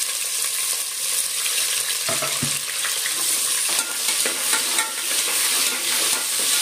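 Onions sizzling as they fry in hot oil in an aluminium pressure cooker, stirred with a ladle that knocks and scrapes against the pot a few times.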